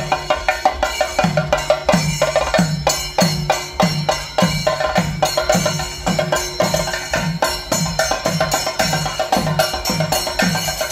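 Drum ensemble playing a steady, driving rhythm: deep drum strokes about twice a second with quick, sharp strikes packed between them.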